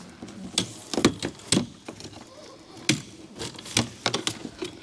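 Irregular sharp clicks and scrapes of a small trim-removal tool being worked under a windshield's chrome reveal molding, prying at the retaining clips through packed debris of twigs and pine needles.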